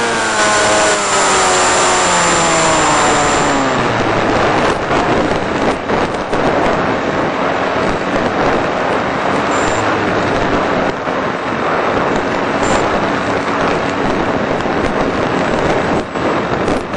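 Electric motor and propeller of a 1.5 m Eagle Wing RC flying wing: the whine falls in pitch and fades over the first few seconds as the throttle is cut back. Then a steady rush of wind as the plane glides, with a few brief clicks.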